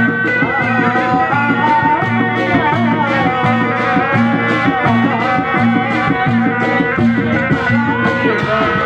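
Live Sundanese bangreng music, loud: drums keep a steady low beat a little more than once a second under a high, wavering melody line.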